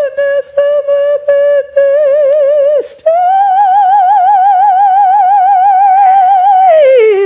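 Unaccompanied operatic singing in a high head voice with a wide, even vibrato. A few short notes on one pitch come first, then a long held higher note that slides down near the end.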